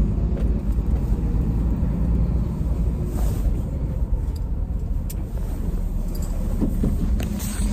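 Steady low rumble of engine and road noise heard inside a vehicle's cabin, with a few faint rustles as a coat brushes the phone.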